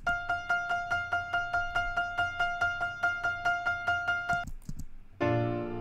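Isolated piano track from a pop-punk multitrack session: a single high note struck evenly, about four to five times a second, for about four and a half seconds. About five seconds in, a louder, fuller sustained keyboard chord comes in.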